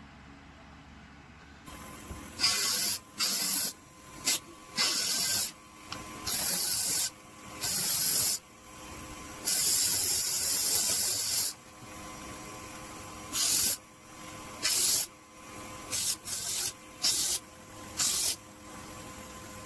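Homemade mini disc sander, a small electric motor with a sandpaper disc on its shaft, starts about two seconds in and runs with a steady hum. Wood is pressed against the spinning disc again and again, each contact a loud, high scraping rush lasting from a fraction of a second to about two seconds.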